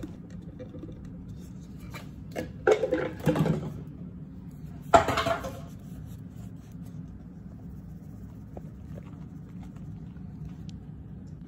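Kitchen handling sounds of a measuring cup and mixing bowl as cornstarch is scooped and added: scattered light clicks, a cluster of knocks and rustles about three seconds in, and a sharper clatter about five seconds in, over a steady low hum.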